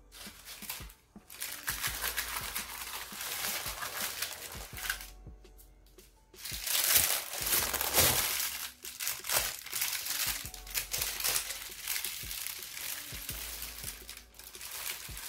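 Baking parchment paper crinkling and rustling as it is handled and peeled off a freshly baked chocolate sponge layer while it is still hot. The rustling comes in uneven bursts, with a short lull about halfway and the loudest crinkling just after it.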